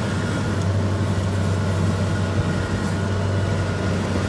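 Kubota DC70 combine harvester's diesel engine running steadily with an even, low drone while harvesting rice.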